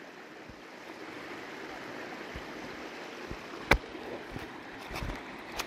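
Shallow creek running over a flat shale bed: a steady wash of flowing water, with a few scattered clicks and one sharper click a little past halfway.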